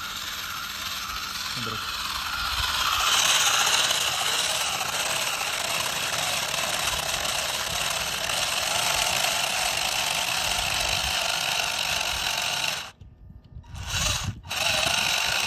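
Electric motor and gearbox of a radio-controlled model Arjun tractor whining steadily while it pulls a spiral roller attachment through sand. The sound cuts out for about a second near the end.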